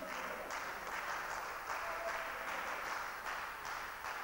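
Spectators' hubbub in a hall: a steady wash of indistinct voices with some scattered clapping.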